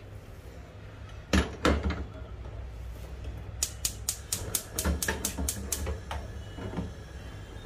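Two knocks as a stovetop sandwich maker is closed and set on a gas hob's burner grate, then a run of about ten quick, even clicks from the hob's spark igniter lighting the burner, about five a second for two seconds.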